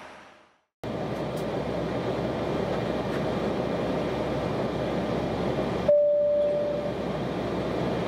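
Steady airliner cabin noise, engine and airflow rush, starting abruptly just under a second in. About six seconds in, a single cabin PA chime rings for about a second, the signal ahead of a landing-approach announcement.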